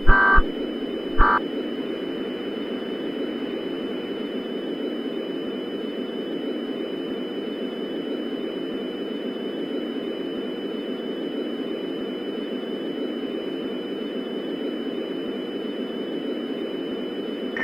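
Steady low hiss of broadcast dead air, with two faint steady high-pitched tones above it. In the first second and a half come two short electronic data bursts about a second apart, the last two of the three end-of-message bursts that close an emergency alert broadcast.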